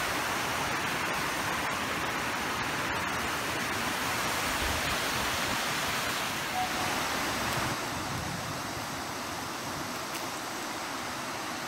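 Steady rush of river water tumbling over small cascades and rapids. It drops slightly in level about eight seconds in.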